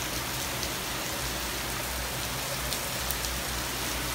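Heavy rain pouring down in a steady hiss during a thunderstorm.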